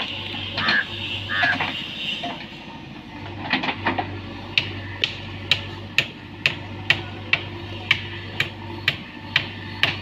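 JCB 3DX backhoe loader's diesel engine running steadily while the backhoe moves soil. From about four and a half seconds in, a sharp metallic clink repeats about twice a second.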